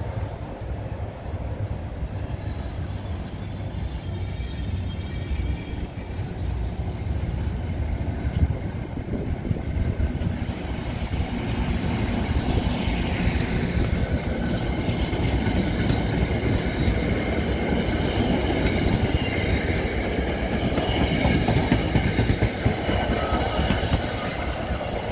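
NJ Transit commuter train coaches rolling past close by, their wheels running steadily on the rails with irregular clacks. A row of faint high ringing tones joins about halfway through. The sound grows louder and eases off near the end as the cab car passes.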